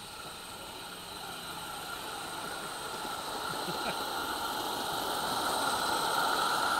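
Steady hiss of a 16mm-scale live-steam garden railway locomotive, growing louder as it draws near and loudest about six seconds in.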